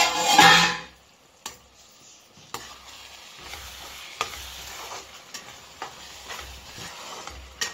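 A metal spoon stirring minced-meat kheema in a non-stick kadai, knocking and scraping against the pan several times over a steady sizzle of the simmering masala.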